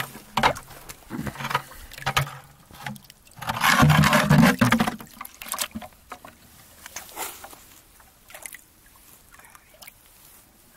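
River water splashing and sloshing as a plastic bucket is dipped in and filled, in a series of short splashes with one longer, louder gush about three and a half seconds in.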